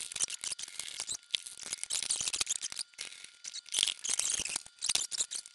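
Hard plastic parts of a BuyAta M1 toy tank being handled and fitted together by hand: a run of small clicks, rattles and scrapes in short irregular clusters.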